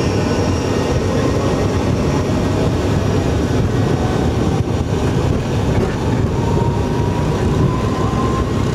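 IAI Westwind 1124 business jet on its takeoff roll, heard from inside the cockpit. Its Garrett TFE731 turbofans and the run along the runway make a loud, steady rumble. In the second half a faint whine rises slowly in pitch.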